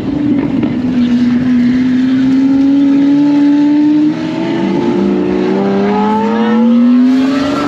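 Car engine accelerating hard through the gears: its pitch climbs steadily, drops once about four seconds in at an upshift, then climbs again.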